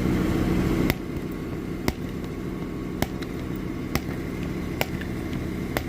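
Spring-loaded window punch snapping against laminated car window glass, six sharp clicks about a second apart, without breaking through. A steady low engine hum runs underneath.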